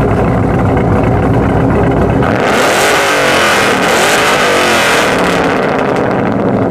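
Car engine running at a low, steady idle, then revving about two seconds in with a loud rush and rising and falling pitch that dies away about five seconds in.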